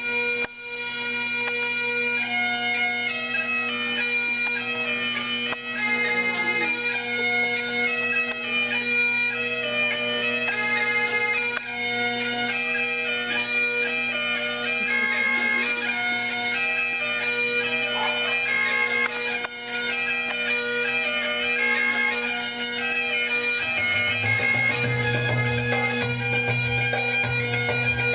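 Bagpipes playing a hornpipe tune: a quick melody over steady drones, the melody coming in about two seconds in, with the low drone growing louder near the end.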